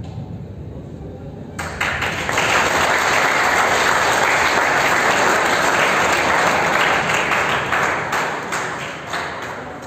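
Audience applauding: the clapping breaks out suddenly about a second and a half in, holds steady, and dies away near the end.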